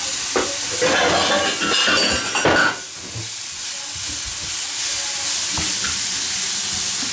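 Sliced leeks frying in oil in a pan, sizzling with a steady hiss, while a spatula stirs and scrapes them. The stirring is busiest in the first two or three seconds, then the sizzle carries on more evenly with a few light knocks of the spatula.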